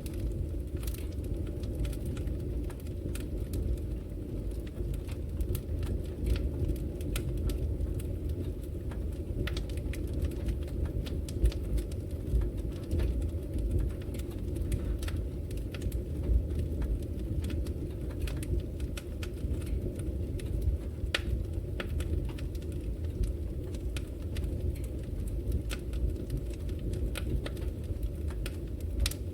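Wood logs burning in a fireplace: a steady low rumble of flame with frequent irregular crackles and pops, a few sharper than the rest.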